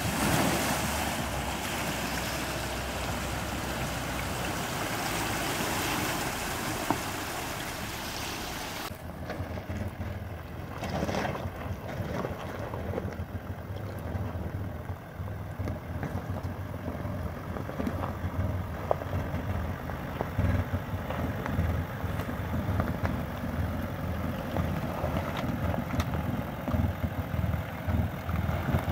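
Toyota LandCruiser LC200 wading through a creek, with water rushing and splashing around it. About nine seconds in, this gives way to the truck's Crawl Control at Speed 2 holding it on a slippery descent: an irregular, stuttering low rumble with ticks as the system pulses the brakes.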